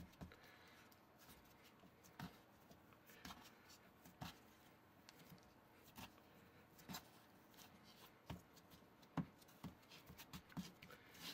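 Faint, irregular soft taps and rubbing of hands kneading crumbly pretzel dough on a wooden cutting board.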